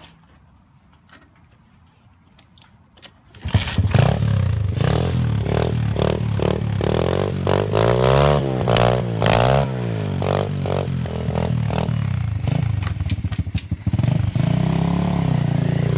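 Small engine of a homemade chain-driven mini bike catches about three and a half seconds in, then runs with repeated revs rising and falling in pitch.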